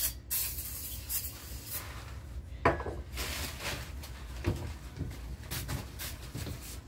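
Glass cleaner sprayed from a can onto a bathroom mirror, then a cloth rubbing and wiping across the glass in repeated strokes, with one sharp knock about two and a half seconds in.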